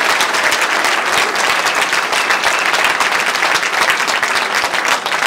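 A large audience applauding steadily, many hands clapping at once, welcoming a speaker who has just been introduced.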